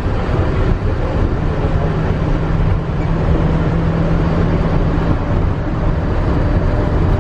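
Monorail train running, heard from inside the cabin: a steady low rumble, with a steady hum that comes in about a second and a half in and stops about five seconds in.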